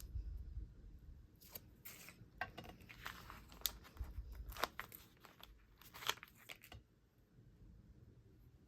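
Faint handling sounds of rubber stamps and their sticker sheet: scattered light clicks and short paper-and-plastic rustles, which stop about seven seconds in.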